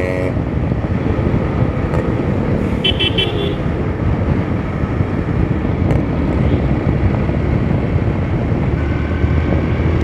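Motorcycle running at road speed with steady wind noise on the rider-mounted microphone, and a short, high-pitched horn beep about three seconds in.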